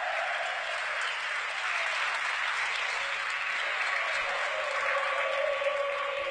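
Crowd applauding steadily as a player walks out to greet them, with a faint held tone sliding slightly lower underneath.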